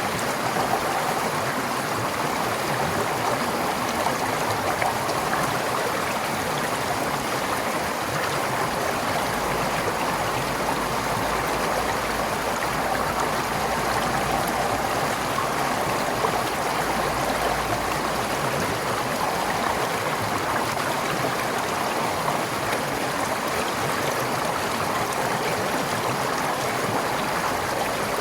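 Forest stream flowing steadily, an even, unbroken rush of water.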